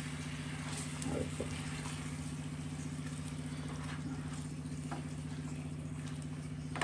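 A steady low mechanical hum, with a few light taps and scrapes of a silicone spatula stirring chicken in gravy in a nonstick frying pan.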